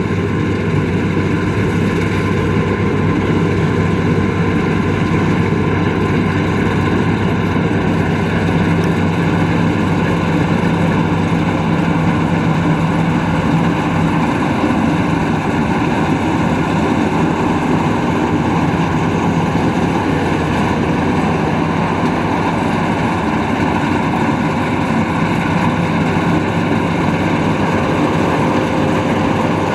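Rice combine harvester running steadily under load, a continuous engine and machinery hum with no pauses.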